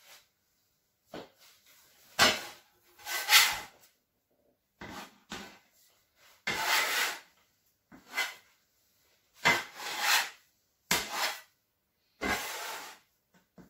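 Metal bench scraper cutting through bread dough and scraping against the board beneath, in a series of about eight short separate strokes.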